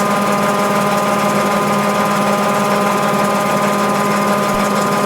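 Mabe Aqua 18 kg washing machine in its spin cycle: motor and drum spinning while the drain pump runs, giving a steady hum with several constant tones. This is the normal spin, with the drain pump emptying out the excess water.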